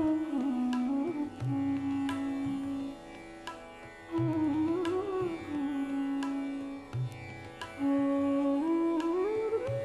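Background music in an Indian classical style: a string melody of long held notes that slide in pitch, over low drum strokes every two to three seconds.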